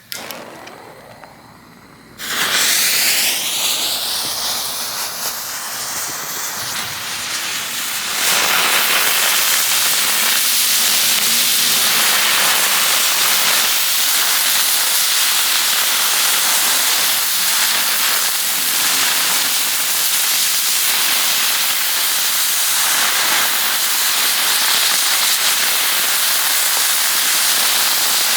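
A line of fused ground bloom fireworks spinning and spraying sparks: a loud hiss starts suddenly about two seconds in, with wavering whistling tones for the first few seconds, and grows louder and denser about eight seconds in, then holds steady.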